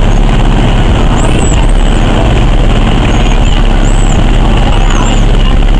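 Motorboat under way: its engine and the rush of water make a loud, steady noise, with a few faint high chirps over it.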